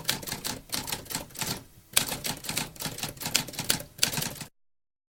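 Typewriter keys clacking in quick succession, with a short pause about one and a half seconds in, then more typing that stops shortly before the end.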